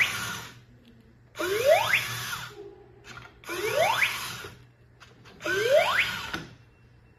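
DUBI robot dog toy's built-in speaker playing the same electronic sound effect four times, about two seconds apart: each is a quick rising whoop over a noisy hiss, about a second long.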